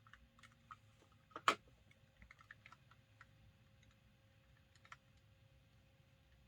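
Light plastic clicks and taps from handling a network cable tester and plugging in its RJ45 cable, with one sharper click about a second and a half in and a last click near five seconds.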